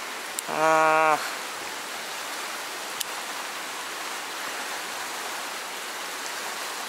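Fast river current rushing past as a steady hiss of moving water. About half a second in, a man's short drawn-out exclamation is heard, and a single click comes about three seconds in.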